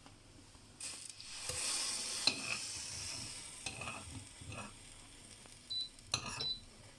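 A spoon stirring milk tea as it boils in a pan, clinking against the pan a few times over a hiss that swells about a second in and fades away.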